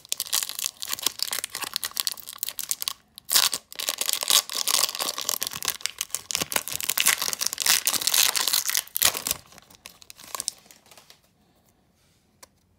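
Foil wrapper of a Pokémon card booster pack being torn open and crinkled by hand: a dense crackling rustle that breaks briefly about three seconds in and dies away about ten seconds in.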